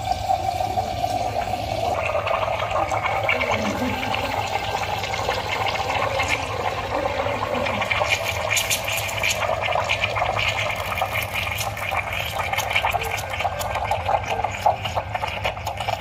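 Espresso machine steam wand frothing milk in a stainless steel pitcher: a steady loud hiss that turns fuller and higher about two seconds in, with crackling bubbles from about eight seconds on.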